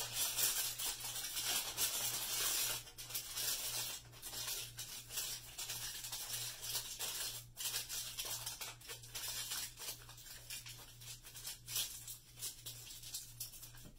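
Aluminum foil crinkling and crackling as it is crumpled and squeezed by hand around a plastic bottle top to mould a pointed cone. It is loudest in the first few seconds and then comes in softer scrunches.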